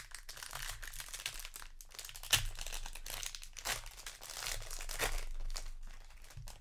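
Foil wrapper of a Magic: The Gathering booster pack crinkling and tearing as it is ripped open by hand, with a few sharp crackles; near the end the foil rustles as the stack of cards is pulled out.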